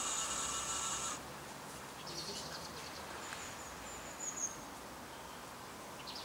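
Small electric motor of an RC model boat whining steadily, cutting off suddenly about a second in. Then a few short, high bird chirps over quiet pond ambience.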